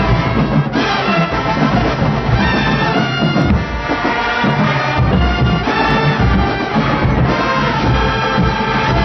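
School band playing a loud brass arrangement, horns carrying the tune over a heavy low drum beat.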